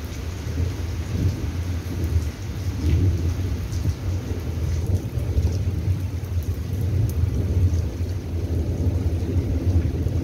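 Thunderstorm: rain falling, under a low rumble that swells and fades.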